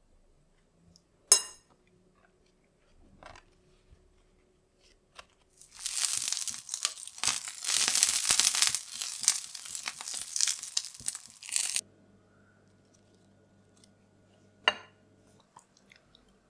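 Banana-leaf-wrapped glutinous rice rolls sizzling and crackling in a hot frying pan for about six seconds in the middle. Before it, about a second in, there is one sharp tap.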